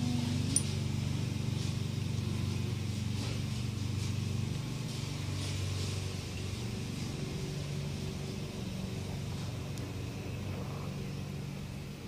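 Tabby cat purring steadily while being petted, a low even rumble, with a few faint rustles of a hand on fur early on.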